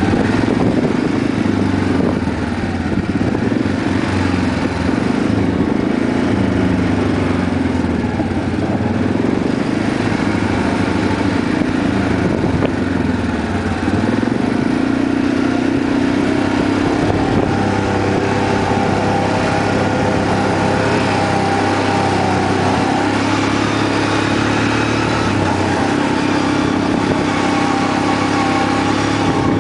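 Quad bike engine running steadily under way, heard from on board, with a small rise in engine pitch about halfway through.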